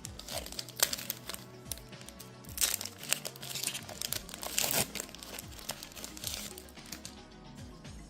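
Foil Pokémon TCG booster pack wrapper crinkling and tearing open, with a cluster of sharp crackles about halfway through, over background music.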